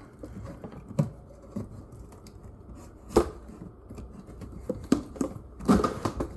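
Hands handling a packaged vise and its strapping band: scattered light clicks and knocks, the sharpest about three seconds in.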